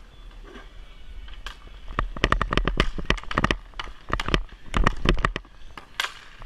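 Rapid clatter of sharp clacks and knocks from hockey sticks and plastic balls striking a wooden rink floor, starting about two seconds in and dying away near the end.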